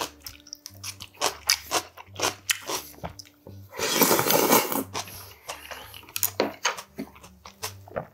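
Close-miked mouth sounds of eating: repeated crunchy bites and chewing, with a loud slurp of maesaengi seafood udon and broth about four seconds in, lasting about a second.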